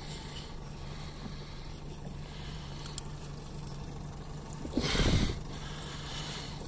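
Fishing reel cranked against a hooked fish on a hard-bent rod, over a steady low hum. About five seconds in, a brief loud rushing noise.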